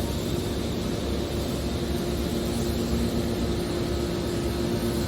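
Hydraulic scrap metal baler running, its power unit giving a steady machine hum over a low rumble.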